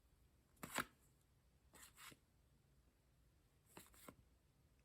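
Three brief, soft rustles of paper trading cards being handled, the first the loudest, over near silence.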